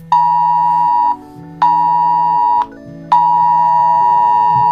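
Electronic emergency-alert tone of a mock EAS broadcast: a steady beep near 1 kHz with a buzzy overtone stack, sounding twice for about a second each with short gaps, then held longer from about three seconds in, over low synthesizer chords.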